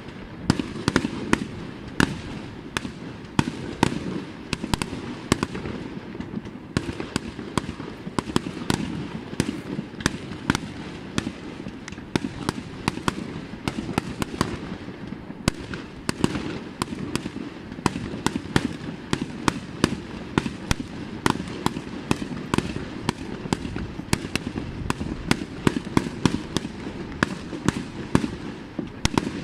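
Fireworks display: aerial shells bursting in quick succession, many sharp bangs a second over a continuous low rumble of reports.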